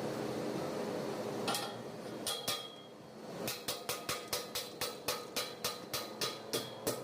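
A steady hum, then from about a second and a half in, sharp metallic taps that settle into an even beat of about four a second.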